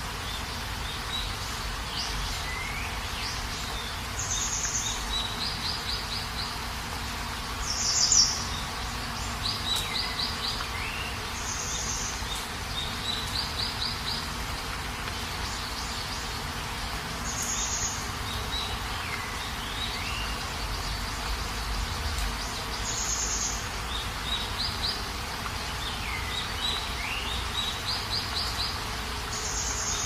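Steady rain with birds chirping over it: short high chirps, quick trills and downward-sweeping calls every few seconds, one louder call about eight seconds in.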